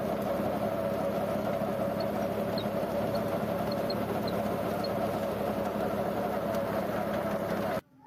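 Tractor engine and its PTO-driven rotavator seed drill running steadily under load, a constant mechanical hum. The sound cuts out abruptly for a moment near the end.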